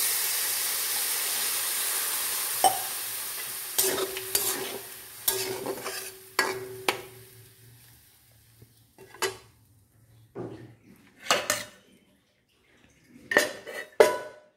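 Water poured into a hot metal kadai of frying potatoes and pointed gourd, hissing and sizzling loudly, the hiss dying away over several seconds. A metal spatula clinks and scrapes against the pan while stirring, then metal clanks near the end as a steel plate is set over the kadai as a lid.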